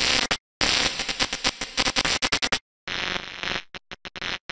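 Crackling electric buzz sound effect of a neon sign flickering on, with a thin high hum, cutting in and out abruptly several times.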